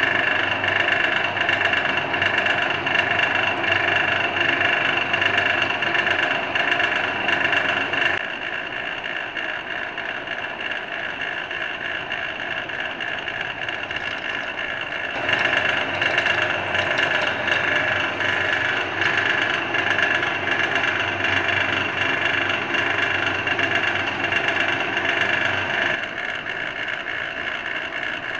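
Bench drill press motor running with a steady whine while a small twist drill bores into a metal block. The sound drops in level about eight seconds in, comes back up about halfway through, and drops again near the end.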